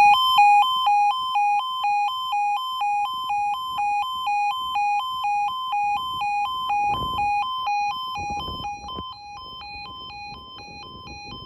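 Level crossing audible warning sounder giving its two-tone alarm, rapidly alternating between a lower and a higher tone, sounding as the crossing runs its emergency sequence. The alarm grows fainter over the last few seconds.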